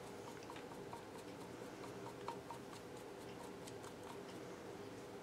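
Faint, scattered small ticks and clicks of metal carburetor parts being handled as the float is fitted back into a Sportster carburetor body.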